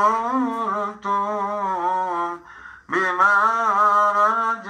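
A man's recorded singing voice holding long notes with a wavering pitch, played from a phone over Bluetooth through an audio mixer and loudspeaker. It breaks off for about half a second a little past halfway, then the next held note starts.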